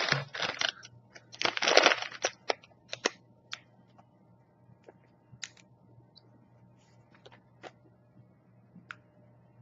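Crinkly plastic snack packaging handled and rustled, loudest in the first two seconds, followed by a few scattered light clicks and taps.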